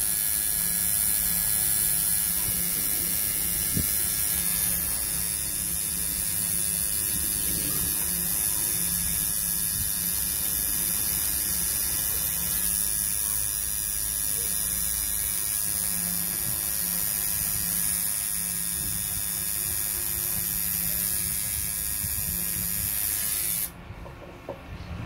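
Coil tattoo machine buzzing steadily as the needle works ink into skin, stopping suddenly near the end.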